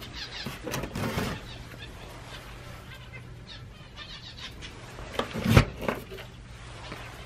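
Small aviary birds making short calls over a steady low hum, with a loud knock about five and a half seconds in.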